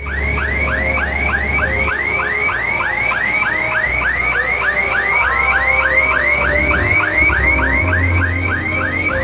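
Electronic alarm or siren tone sweeping down in pitch over and over, about four times a second, with music and a bass line playing underneath.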